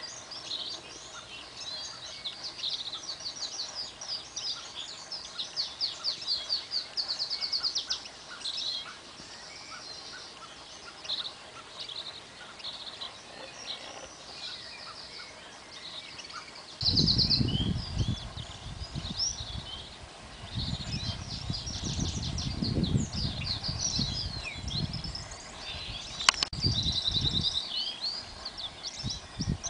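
Several small birds singing and chirping at once, a busy chorus of quick notes and trills. About halfway through, a low rumble comes in and stays, and there is a single sharp click near the end.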